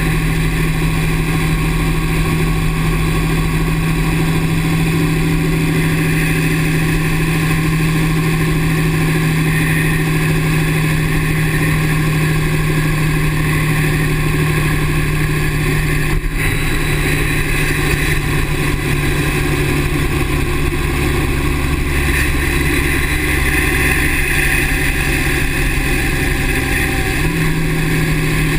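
2009 Dodge 6.7-litre Cummins inline-six turbo-diesel running steadily, its note stepping up slightly near the end.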